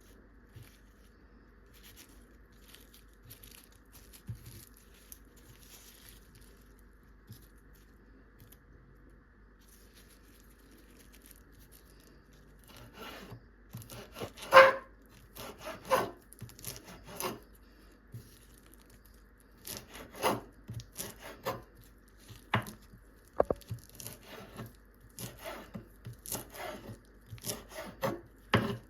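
Knife cutting fresh coriander on a wooden cutting board: faint small handling sounds at first, then from about halfway on a run of short, irregular chopping and scraping strokes.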